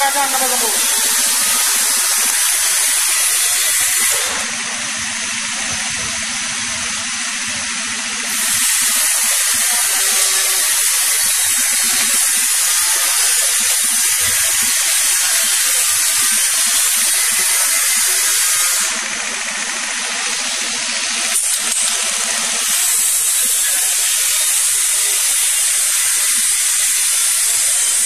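Compressed air hissing steadily from the robot's pneumatic hoses and valves. The hiss drops away twice for about four seconds, about four seconds in and again past the middle, and a low hum shows through each time.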